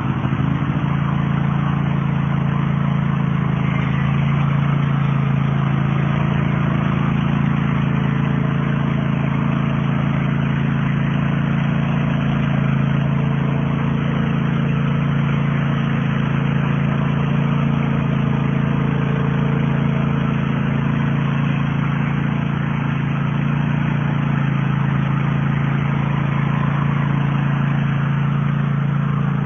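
Cub Cadet LT riding lawn mower's engine running at a steady speed, with an even low hum that doesn't change.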